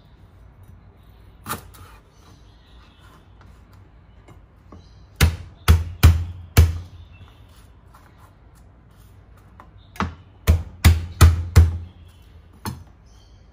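Heavy knocks in two quick runs, four about five seconds in and five more about ten seconds in, with a single knock before and after.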